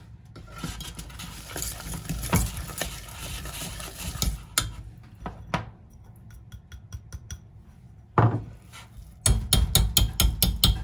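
A wire whisk beating stiff choux pastry dough in a stainless steel saucepan, scraping through the dough and knocking against the pot. A single loud knock comes about eight seconds in, and near the end the whisk beats fast, knocking on the pot about five times a second.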